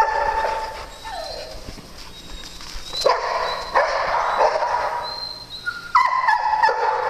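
Dogs vocalizing in play: high-pitched, drawn-out whining yips in several bouts, near the start and again about three and six seconds in.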